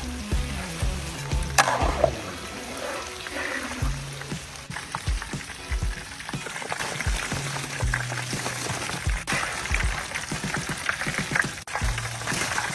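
Food sizzling and crackling as it fries in hot oil, under background music with a low bass line.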